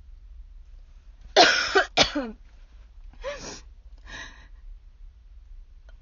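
A woman who is ill coughing: two hard coughs about a second and a half in, then two weaker coughs.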